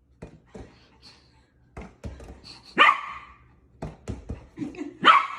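A dog barks twice, sharply, about three seconds in and again near the end, with light knocks in between.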